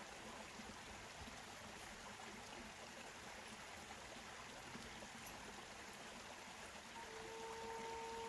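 Faint steady rush of running water, like a forest stream. About seven seconds in, a native American flute begins one long, low held note.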